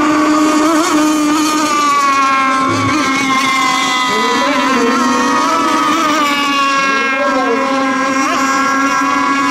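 Several radio-controlled racing boats running flat out together, their motors whining at different steady pitches, with a few brief rising and falling pitch swings as boats pass or turn.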